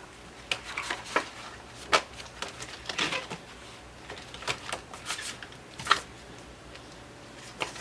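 Paper and card being handled: irregular rustles and light clicks as sticker sheets and workbook pages are moved about.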